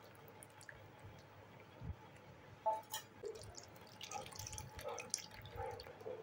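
A hand squeezing tamarind pulp in salted water in a plastic bowl: faint wet squelching and dripping, with a few small splashes in the second half.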